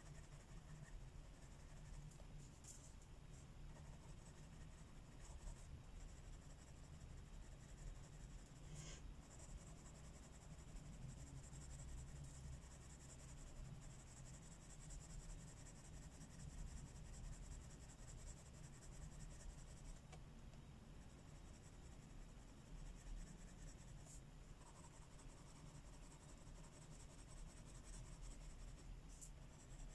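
Faint, steady scratching of coloured pencil strokes on paper as a colouring-book page is shaded, with a few light ticks.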